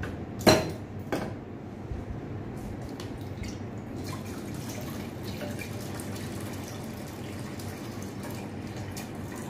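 A glass pot lid knocks twice, loudest about half a second in, as it is lifted off and set aside. Then water pours steadily from a jug into a nonstick pot.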